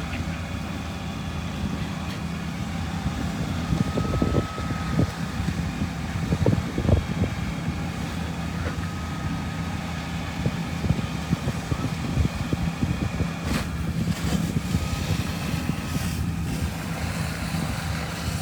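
Fire apparatus engines idling with a steady low hum, while gusty wind rumbles irregularly on the microphone.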